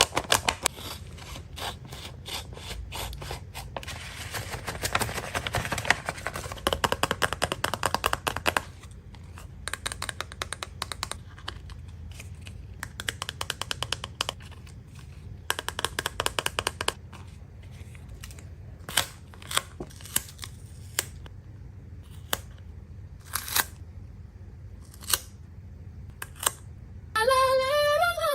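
Paper blind bags being handled and opened: crinkling, rustling paper with scattered sharp clicks, densest for a few seconds near the start.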